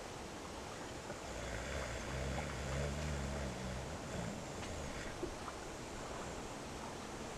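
A sleeping man snoring once, a low rumbling breath lasting about two seconds, over a steady background hiss.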